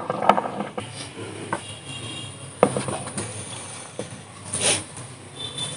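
Microphone handled as it is passed from one speaker to the next: a few soft knocks and rustles and a short hiss about three quarters through, over faint background ambience.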